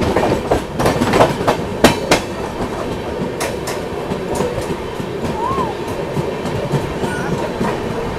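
Express train running at speed, heard from aboard: a steady rumble with the wheels clattering over rail joints in sharp clicks at uneven intervals.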